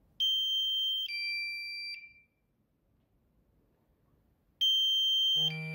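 Drone controller app's low-battery warning sounding from the phone: a high tone stepping down to a lower one, played twice with a pause of about two and a half seconds between. The alert marks the drone's critically low battery during its forced landing.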